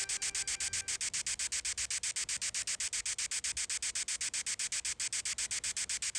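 Steady static-like hiss, pulsing evenly about eight times a second.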